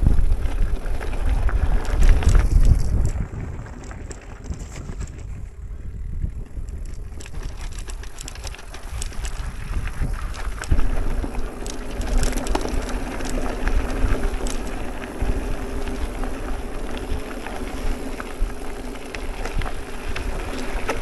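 Electric mountain bike ridden down a rough trail: wind buffeting the microphone, with the tyres and bike rattling over rocks and gravel. The wind is strongest in the first few seconds. About halfway through, a steady low hum joins in.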